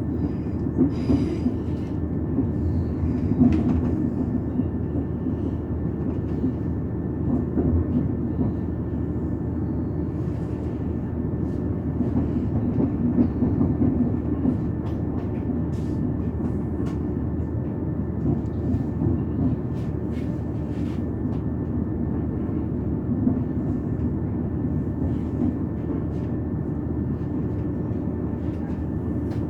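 Passenger train running along the line, heard on board: a steady low rumble with a faint steady high tone and scattered light clicks.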